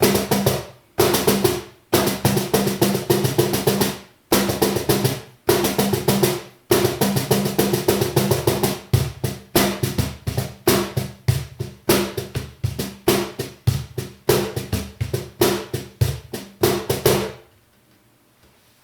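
La Rosa Blackie cajón played by hand with its snare wires left unmuted: fast runs of strokes and rolls in groups, stopping shortly before the end.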